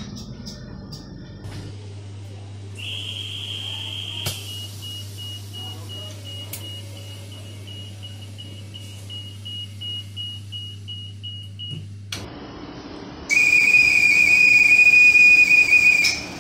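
Train door-closing warning signals. First a high electronic beep, then a fast series of short beeps for about eight seconds over a low steady hum. After a cut comes a loud, steady high whistle tone for about three seconds: the door-closing whistle of a Dutch NS VIRM double-decker train.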